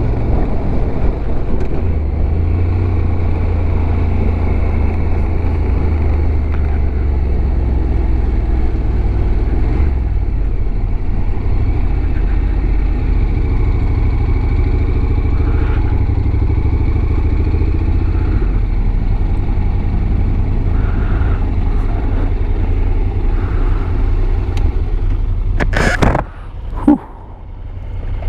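Motorcycle running steadily under way, its low engine rumble heavy throughout. Near the end the noise suddenly drops away, broken by one sharp knock.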